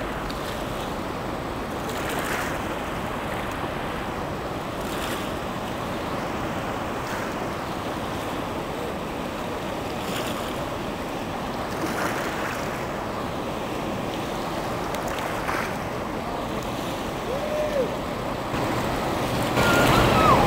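Steady rush of the fast, muddy Colorado River flowing past the bank, with wind buffeting the microphone.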